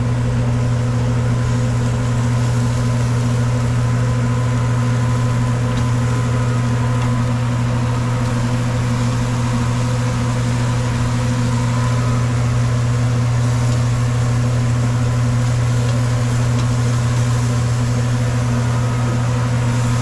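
Steady low machine hum with a strong deep tone and fainter higher overtones, running without change.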